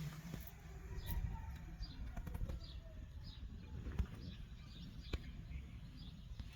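Small birds chirping: short, high, falling chirps repeated every half second or so over a low rumble, with a couple of sharp clicks.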